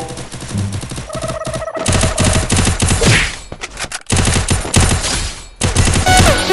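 Rapid automatic gunfire sound effect: a fast, continuous stutter of shots, broken by a short gap about four seconds in.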